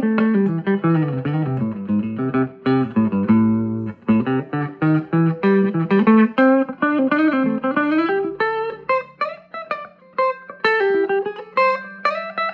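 Electric guitar with vintage DeArmond goldfoil pickups played through a small 5-watt tube amplifier into a 10-inch Eminence Cannabis Rex speaker: a run of picked notes and chords, the melody falling and then climbing again.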